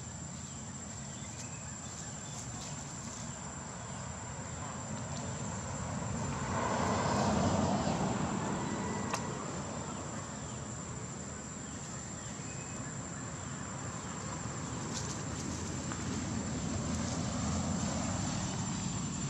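Outdoor background noise with a motor vehicle passing, swelling and fading about seven seconds in and building again slowly near the end, over a steady high-pitched whine.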